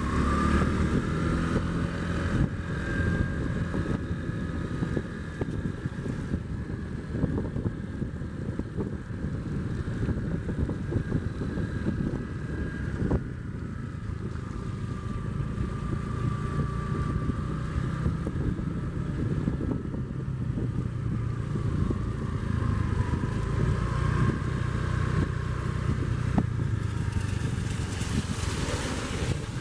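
Electric high-speed Comprehensive Inspection Train running slowly past under its own power: a steady rumble of wheels on rail, with a faint whine that wavers in pitch.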